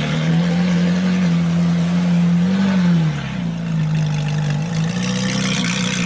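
Ferrari 458 Italia's V8 engine idling steadily, with a brief rise in revs about two and a half seconds in that drops back to idle.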